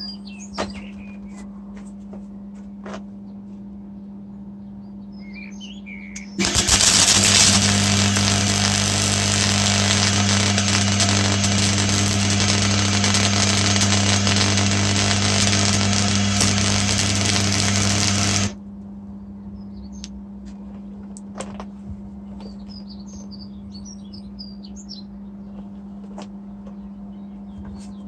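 MIG welder arc crackling steadily while a bead is run, starting suddenly about six seconds in and cutting off about twelve seconds later. A steady low hum runs underneath throughout, and birds chirp in the quieter stretches.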